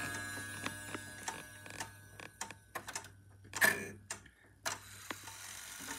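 Parliament 31-day chime wall clock: the ring of a chime fades out over the first couple of seconds, then the movement ticks and clicks while the minute hand is turned by hand, with a brief rub on the dial near the middle.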